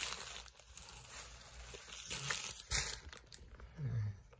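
Tissue paper in gift bags rustling and crinkling as it is handled, dying down after about three seconds. A brief low murmur comes near the end.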